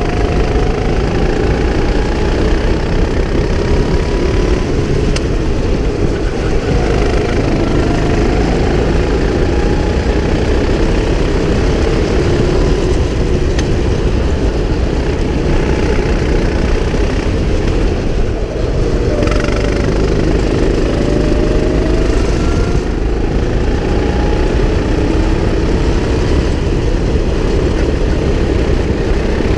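Go-kart engine heard from on board while racing, running loud and steady, its pitch rising and falling repeatedly as the throttle opens and closes.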